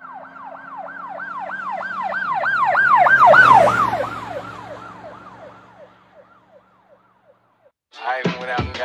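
Emergency vehicle siren yelping in quick repeated sweeps, about three a second, growing louder to a peak about three and a half seconds in, then fading away as it passes. A music beat comes in near the end.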